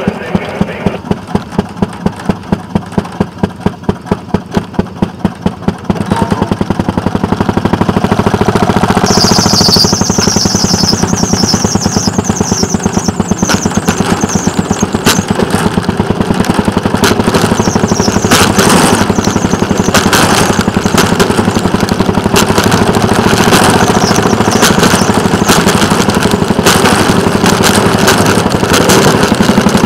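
Rail motorcar (speeder) engine running, with a slow regular pulse for the first few seconds before it gets louder and runs steadily as the car travels along the track. A high squeal joins in for several seconds near the middle.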